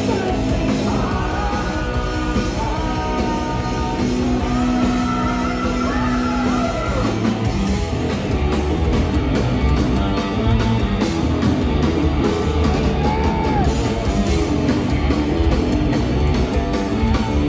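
A live rock band playing loud, heard from the audience: electric guitar, bass guitar and drums, with singing in the first part.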